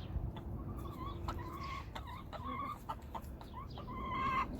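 Backyard hens clucking, a run of short repeated calls, loudest near the end.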